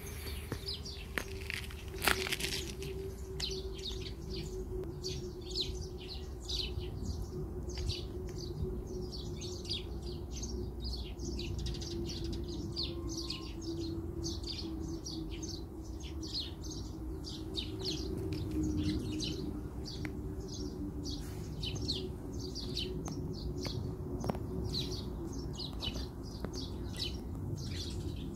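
Small birds chirping rapidly and continuously, many short falling notes, over a steady low hum. A sharp click about two seconds in.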